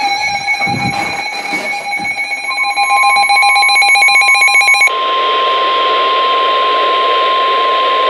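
NOAA weather radios sounding a severe thunderstorm warning: a warbling electronic alert from one radio that pulses faster and then cuts off about five seconds in. The steady 1050 Hz warning alarm tone of the broadcast comes in about two and a half seconds in and holds over radio hiss. A few handling bumps come in the first two seconds.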